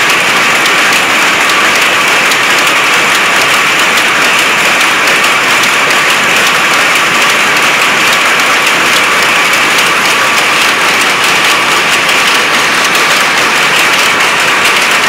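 Many power looms running together: a loud, steady, dense mechanical clatter of rapid beating and picking strikes.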